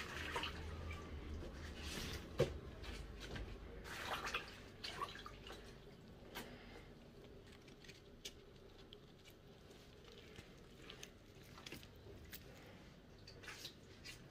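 Dry corn husks rustling and crackling as a ball of Ga kenkey corn dough is wrapped in them by hand, with soft squishes of the wet dough. The crackles come thick for the first few seconds, then thin out to an occasional click.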